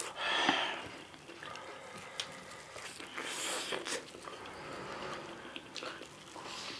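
Close-up eating sounds of people chewing omelette and noodles: wet mouth and chewing noises, with a few sharp clicks scattered through.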